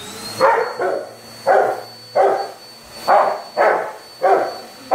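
Rottweiler barking repeatedly at a running upright vacuum cleaner, about seven barks, some in quick pairs. Under the barks the vacuum's motor spins up with a short rising whine at the start, then runs with a steady high whine.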